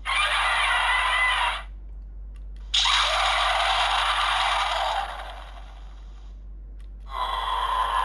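Electronic sound effects played through the small speaker of a DX GUTS Sparklence toy, in three bursts of a second or more with short pauses between, all mid and high sounds with no bass.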